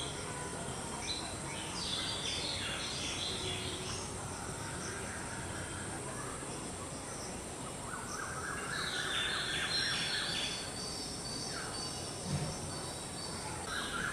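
Several birds calling with short chirps and warbled phrases, busiest in a run of rapid chirps about two-thirds through, over a steady high-pitched insect drone.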